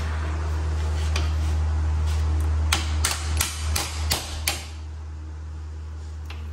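Hammer blows on metal, driving a part out of the strut assembly: a few lighter taps, then about six hard strikes in quick succession about halfway through, over a steady low hum.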